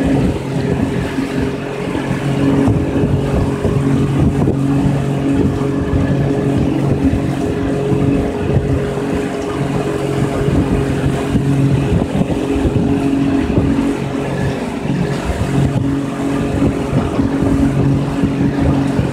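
Small fishing boat's outboard motor running steadily at low cruising speed, with wind noise on the microphone.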